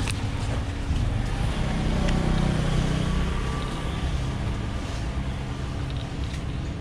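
Street traffic rumbling, with a vehicle engine growing louder and then fading as it passes about two seconds in.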